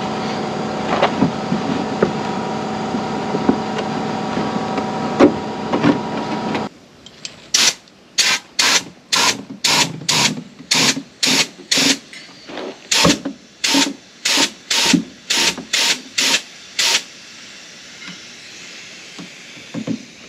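A steady mechanical hum with scattered knocks as a basketball is pushed in behind a truck's fender. After an abrupt break, about twenty short strokes of air, roughly two a second, from a hand pump inflating the basketball wedged behind the fender to push the dented panel out. The strokes stop near the end.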